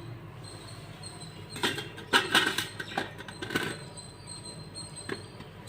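Fruit being washed by hand, heard as several short bursts of handling noise over a faint steady background, the busiest stretch around the middle.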